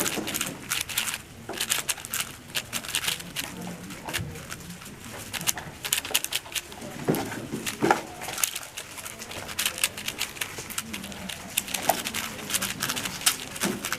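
Rapid, irregular clicking and clacking of a speed cube's layers being turned during a solve.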